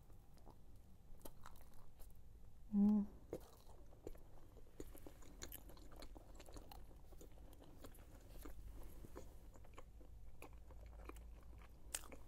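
A person chewing a mouthful of shawarma wrap close to the microphone, with many small wet mouth clicks and crunches. A short hummed "mm" about three seconds in is the loudest sound.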